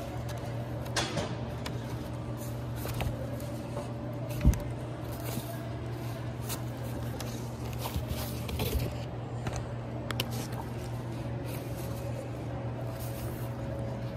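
Cardboard LP record jackets knocking and sliding against one another as a hand flips through a crate of vinyl records, with one sharper knock about four and a half seconds in. A steady low hum runs underneath.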